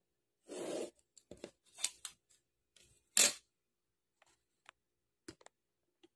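Drafting tools handled on a paper sheet: a clear plastic set square and a wooden straightedge sliding and tapping against each other, giving a run of short scrapes and clicks, the loudest about three seconds in.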